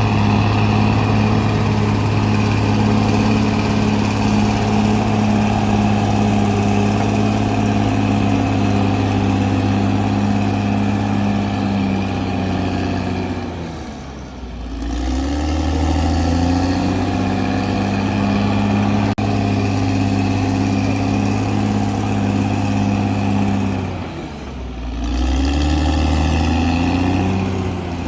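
CAT D6R XL bulldozer's diesel engine running hard and steady. Its revs drop about halfway through and again near the end, each time climbing back up.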